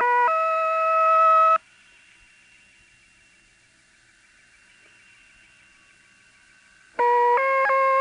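A shortwave station's interval signal received off air: a short tune of steady beeping tones stepping from note to note, which the narrator takes to be generated by a mechanical device. The tune stops about a second and a half in, leaving faint receiver hiss for about five seconds, and starts again near the end.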